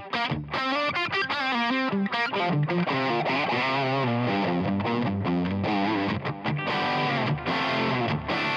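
Distorted electric guitar playing a fast run of picked lead notes through a Line 6 Helix 'Brit Plexi Bright' amp model, with a dotted-eighth delay on tap tempo repeating the notes.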